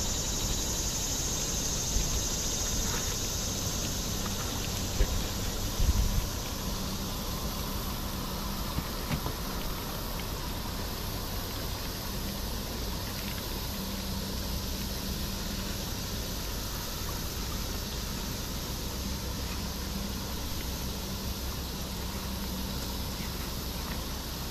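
Steady outdoor background hiss with a faint low hum that comes and goes, and a few sharp knocks of things being handled in the first six seconds.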